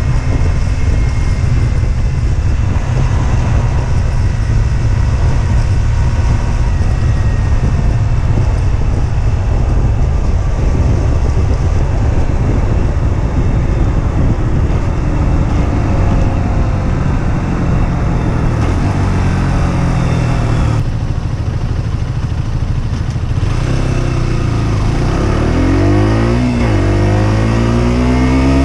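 Husqvarna Svartpilen 125's single-cylinder engine while riding, with heavy wind and road noise over the microphone at cruising speed. The engine note then falls as the bike slows. Near the end it revs up, drops sharply at a gear change, and climbs again.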